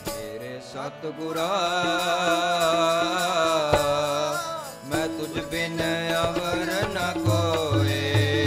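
Sikh kirtan: a man sings a hymn over a steady harmonium drone. The sung line wavers in pitch through the first half, and low drum strokes, typical of tabla, come in near the end.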